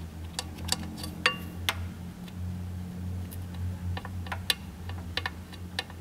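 Irregular light clicks and taps over a steady low hum.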